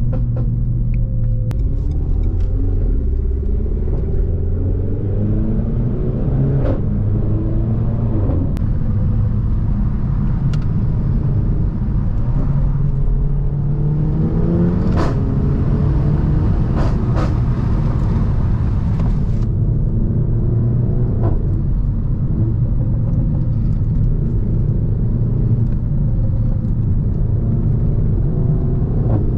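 Renault Mégane 4 RS 280's 1.8-litre turbo four-cylinder with a catless exhaust, being driven: engine pitch rising and falling several times through the gears over a steady low rumble. Sharp exhaust pops crack out here and there, several close together around the middle.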